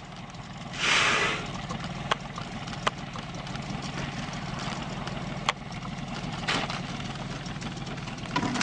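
Boat's outboard motor idling steadily, with a loud short whoosh about a second in and a few sharp ticks.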